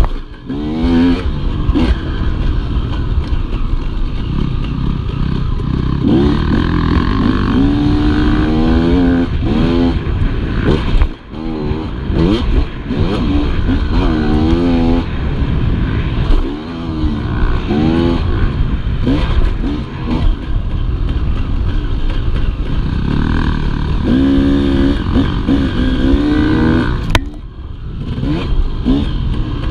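Dirt bike engine heard from on the bike, revving up and easing off again and again as it is ridden, its pitch climbing on each pull of the throttle and dropping away on the lift-offs. A rough rumble and rattle from the ride over the bumpy dirt runs underneath.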